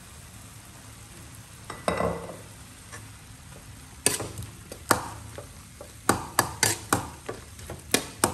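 Metal spatula scraping and clanking against a steel wok while stir-frying sliced beef, with the meat sizzling in oil. A ringing scrape comes about two seconds in, then a run of sharp clanks, about two a second, from about four seconds on.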